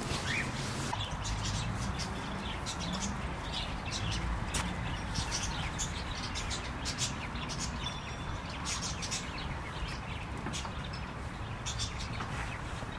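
Small birds chirping, many short high chirps scattered throughout, over a steady low background rumble.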